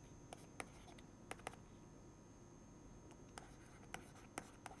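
Faint, irregular taps and clicks of a stylus on a tablet screen during handwriting, about eight over a few seconds, over near silence.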